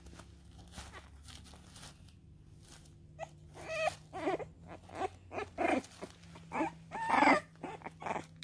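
French bulldog puppy whimpering: a string of short, high whining calls starting about three and a half seconds in, the loudest a little after seven seconds, after a few seconds of faint rustling.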